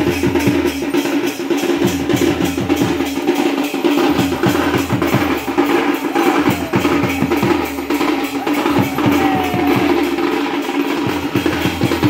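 Music with a fast, steady drum beat over a held low drone.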